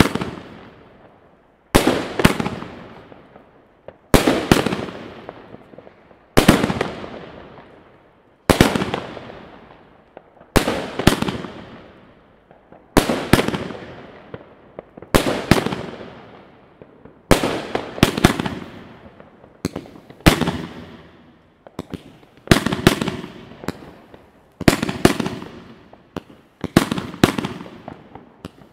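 Weco Dr. Jekyll 30 mm fireworks battery firing its shots one at a time, about one every two seconds. Each shot is a sharp double report, launch then burst, followed by a long fading tail.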